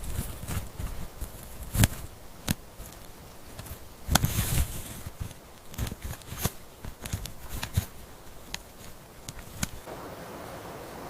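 Irregular sharp clicks and crackles, with a louder rustling burst about four seconds in.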